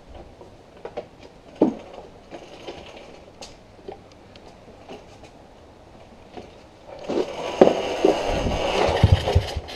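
A 125cc engine in a home-built quad being started for the first time: a few clicks and knocks, then about seven seconds in it briefly catches and runs roughly for a couple of seconds before dying away, a first sign of life.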